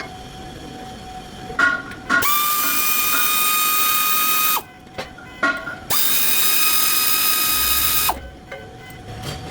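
Compressed-air workshop tool running in two bursts of about two seconds each, a steady whine over a hiss, with a few clicks between them.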